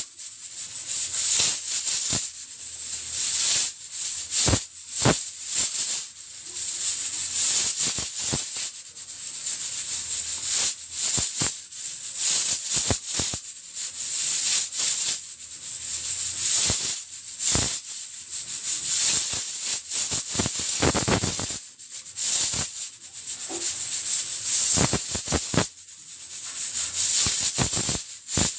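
Stovetop pressure cooker at full pressure, its weighted steam valve rattling and hissing as it vents steam, swelling and easing in uneven surges with sharp clicks.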